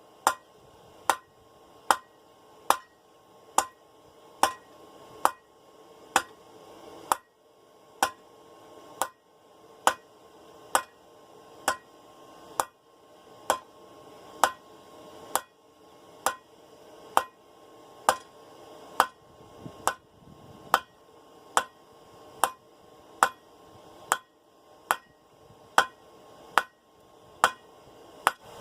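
Hammer blows on a half-inch round steel bar at forging heat on an anvil. The bar is being drawn out and cleaned up, and the blows come in a steady rhythm of a little over one a second, each with a short metallic ring.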